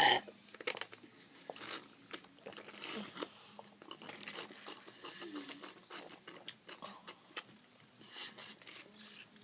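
Juice boxes being squeezed and sucked dry through their straws: scattered crinkling and clicking of the cardboard packs, loudest right at the start.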